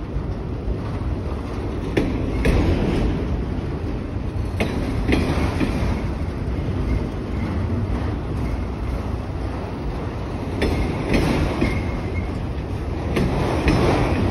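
Freight train of autorack cars rolling past: a steady rumble of wheels on rail, with clickety-clack clicks in pairs about half a second apart every few seconds as the wheels pass.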